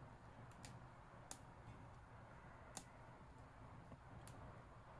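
A handful of faint, sharp clicks, a second or more apart, over near silence: small parts being handled while the tablet is taken apart.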